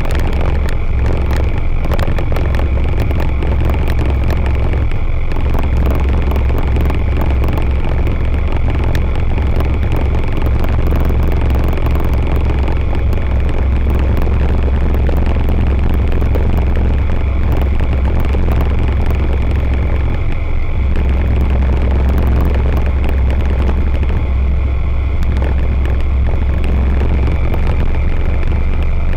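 Rotax 912 ULS flat-four engine and propeller of an Aeroprakt A22LS Foxbat ultralight running steadily in flight, heard from inside the cabin as a loud, unchanging drone.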